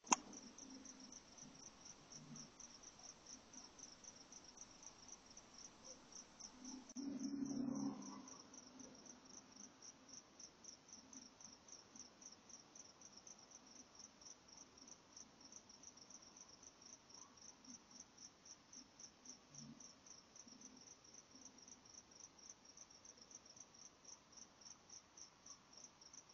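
A cricket chirping faintly and steadily, a few high chirps a second. About seven seconds in, a louder low sound lasts about a second.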